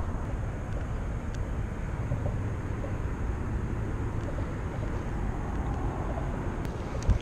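Steady low rumble of freeway traffic, with one thump near the end.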